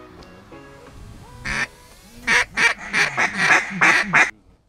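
Duck call blown by hand: a single short note, then a quick run of about eight loud, short notes, each falling in pitch, before the sound cuts off suddenly. Background music with held tones plays in the first second.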